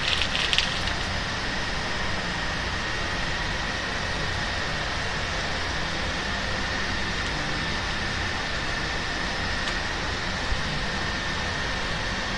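Steady rushing background noise with a thin, constant high whine running through it. A brief flurry of small clicks comes right at the start.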